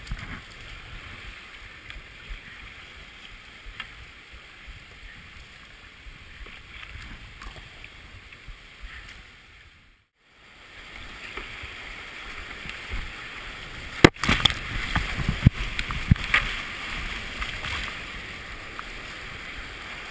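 Creek whitewater rushing around a kayak, with paddle splashes. The sound cuts out briefly about halfway, then a sharp knock and a few seconds of heavier splashing follow.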